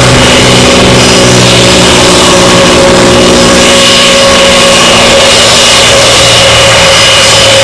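Ground noise of an Airbus A320-214 being pushed back: the pushback tug's engine running steadily under a constant high whine from the aircraft.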